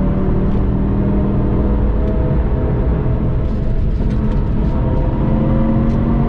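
Audi TT RS turbocharged 2.5-litre inline five-cylinder engine pulling hard under acceleration, heard from inside the cabin over a low rumble. Its pitch rises slowly as the car gains speed.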